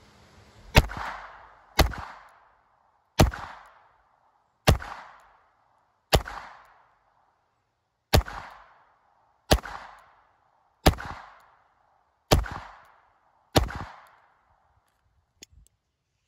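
.22 LR semi-automatic pistol firing ten single shots at a steady pace, roughly one every second and a half. Each crack trails off in a short echo. Two faint clicks follow near the end.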